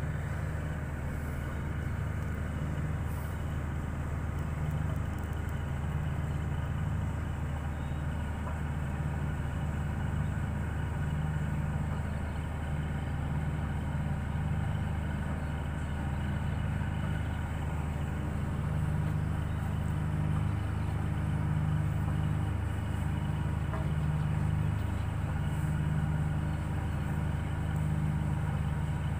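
A boat's engine running steadily with a low, even drone that swells slightly in the second half.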